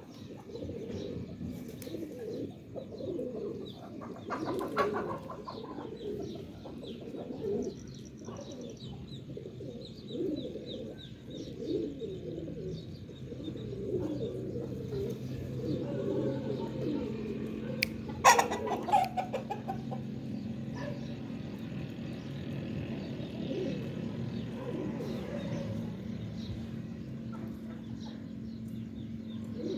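Pigeons cooing on and on while Aseel chickens cluck. Two short, louder, sharp sounds stand out, about five seconds in and again around eighteen seconds.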